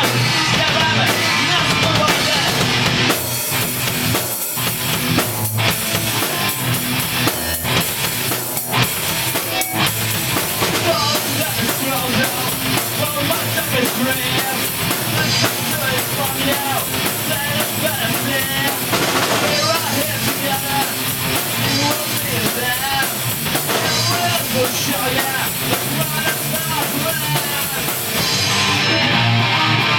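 Punk rock song played by a band, with the drum kit prominent under the instruments and a change in the arrangement a couple of seconds before the end.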